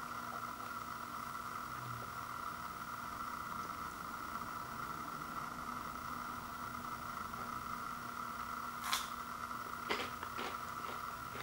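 Steady background hum, with a few sharp clicks near the end from popcorn being handled in a clear plastic bowl.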